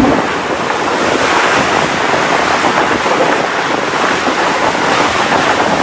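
Steady rushing noise of sea water and wind around a boat, with wind on the microphone.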